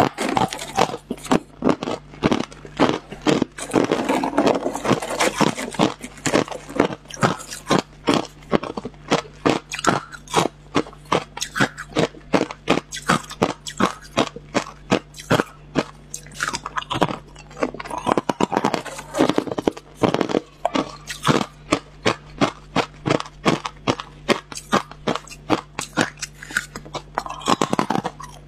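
Hard clear ice chunks being bitten and chewed close to a lapel microphone: a continuous run of sharp crunches, about two or three a second, over a steady low hum.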